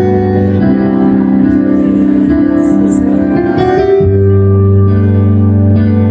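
Yamaha stage keyboard playing a slow instrumental intro of sustained chords over held bass notes, the chord changing about half a second in and again about four seconds in.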